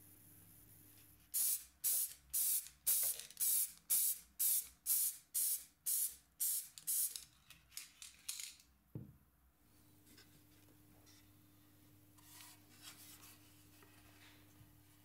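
Aerosol spray can spraying in short hissing bursts, about two a second for some seven seconds, then stopping.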